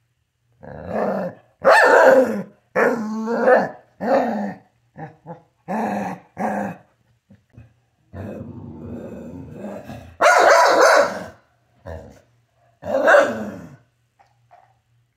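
Dogs growling and barking in rough play: a string of about a dozen loud growls and short barks, with a longer, rougher growl about eight seconds in.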